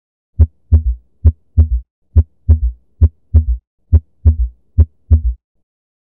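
Recorded heartbeat with a third heart sound (S3, ventricular gallop). Each cycle is a single thump followed by a close pair, the second of the pair a little softer, giving a three-beat galloping rhythm of about six cycles before it stops near the end. The extra sound comes in early diastole, when a large volume of blood rushes into the ventricle.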